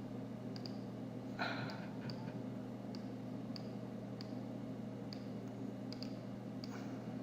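Scattered computer mouse clicks, about a dozen at irregular intervals, over a steady low hum.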